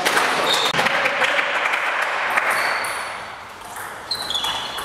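Spectators clapping and calling out after a point in a table tennis doubles match, fading away after about three seconds. About four seconds in, the next rally begins: the ball pings sharply off bats and table.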